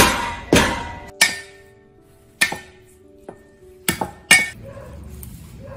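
A string of sharp knocks and clinks: a metal bowl set down on a wooden table, then a cleaver striking a wooden chopping block a few times, the last strikes close together near the end. Some knocks leave a short metallic ring.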